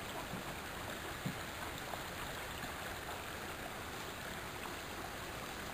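Steady trickle of running water from a rock-edged garden pond, with a single faint tap about a second in.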